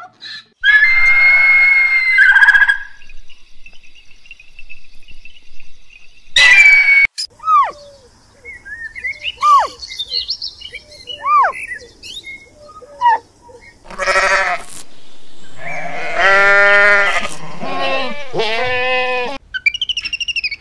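A string of different animal calls: Asiatic wild asses braying early on, then, from about 14 s in, repeated long pitched calls of a red deer stag, with scattered short chirping calls in between. Short high calls of an owl monkey come near the end.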